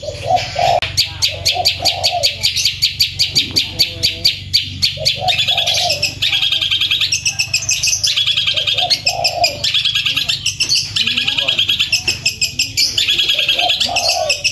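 Long-tailed shrike (cendet) singing loudly and nonstop in fast rolling runs of sharp repeated notes, about ten a second, with short lower phrases every few seconds.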